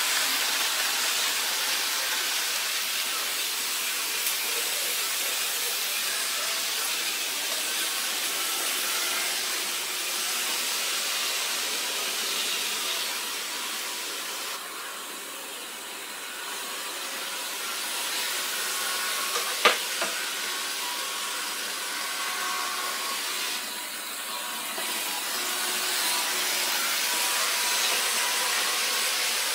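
Steady whirring hiss of electric model trains running on a large layout, easing off briefly twice, with one sharp click about twenty seconds in.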